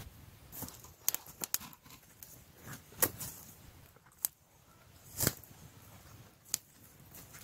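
Open wood fire crackling, with a dozen or so sharp pops at irregular intervals.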